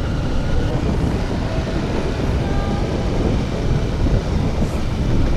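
Dirt bike riding a rough dirt track, its engine and wind buffeting the microphone in a dense, steady rumble.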